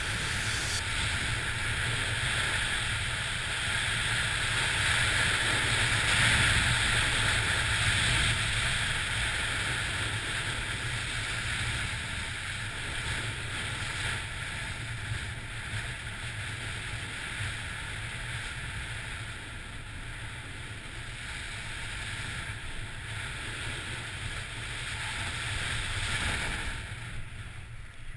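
Snowboard sliding and carving over packed snow at speed, with wind rushing over the camera microphone; the rush dies down near the end as the board slows.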